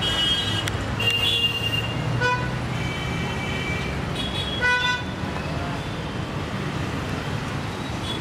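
Busy road traffic of motorcycles, scooters and cars, engines running in a steady rumble. Several vehicle horns honk over it in the first half: quick toots and a few held for about a second.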